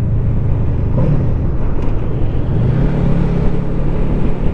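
Honda VFR800F's V4 engine running on the move; its note dips about a second in, then the revs climb past the middle and hold.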